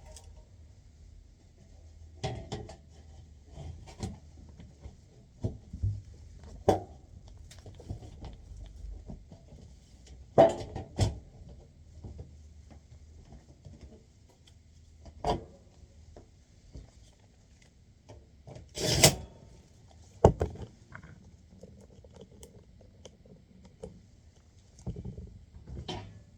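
Scattered clicks, knocks and rubbing from hands and tools working on an HVAC unit's panel and control-board wiring, with the loudest clatters about ten seconds in and again a little before twenty seconds. A faint low hum sits underneath and fades out about halfway through.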